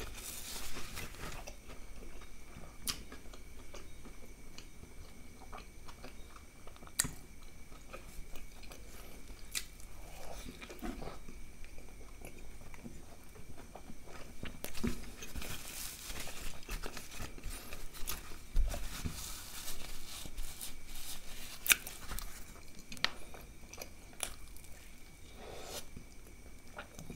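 Close-miked chewing and biting of a chicken burger, with scattered sharp clicks and short crunchy bursts that come thickest in the middle stretch.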